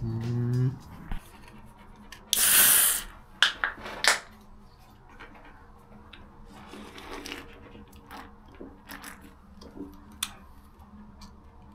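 Eating a flaky sausage roll, with chewing, and handling noises: a loud rustle lasting under a second about two seconds in, then a few sharp clicks and scattered light taps.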